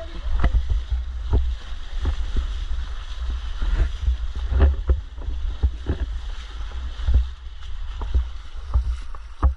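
Wading through a shallow stream: water splashing and sloshing in irregular strokes with each step, over the steady rush of the stream and a heavy low rumble of wind or handling on the microphone.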